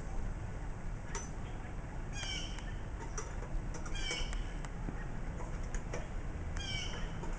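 An animal's short, high calls that slide down in pitch, heard three times about two seconds apart.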